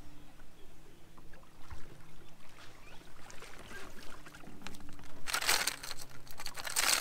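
A hooked fish splashing and thrashing at the surface beside the boat as it is landed, in two bursts about five seconds in and again near the end, over a faint steady hum.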